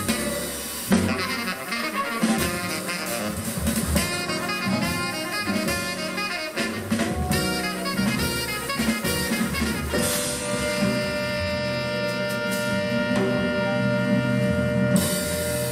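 Jazzy swing-style jive dance music with a steady drum beat, ending on a long held final chord about ten seconds in that cuts off near the end.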